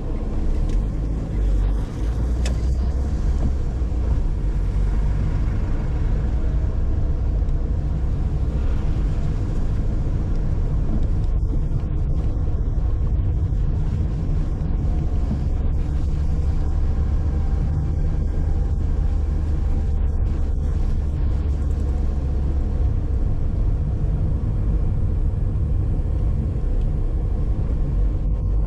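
Car driving along at steady speed: a continuous low rumble of engine and tyre noise.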